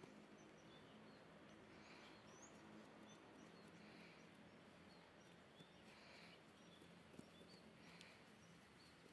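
Near silence: faint outdoor background with a low steady hum and soft bird chirps, one recurring about every two seconds.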